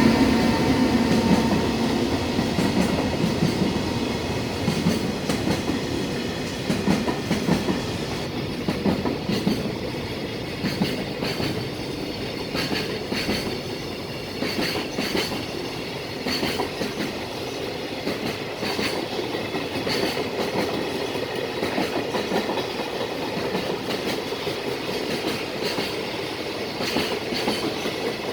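Container freight train rolling past at speed, its wagon wheels clicking over rail joints in a regular repeating beat as wagon after wagon goes by. A steady hum at the start fades within the first second or so.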